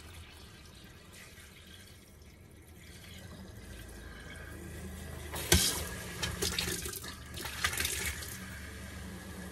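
Water running from a kitchen faucet into the sink as the plumbing lines are flushed with antifreeze. The flow grows louder after a few seconds, with a sharp knock about halfway through and a few smaller clicks after it.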